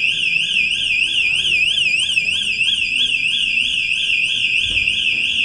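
Electronic alarm sounder that has been set off, warbling continuously: a piercing tone sweeping rapidly up and down in pitch, about four sweeps a second.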